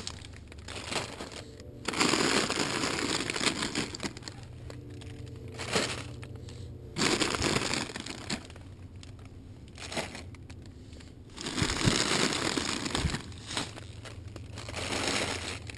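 A thin plastic grocery bag and the crinkly snack-size chip bags inside it rustling and crackling as handfuls of bags are pulled out, in several bursts with short pauses between.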